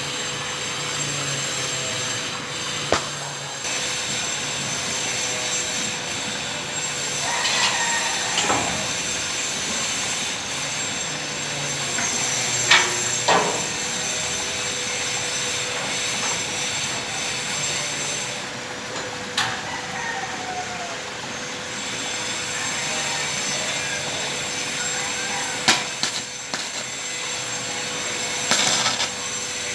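Steady metalworking noise, most likely arc welding: a continuous hiss with a steady hum, broken by a few sharp metal knocks and short squeals.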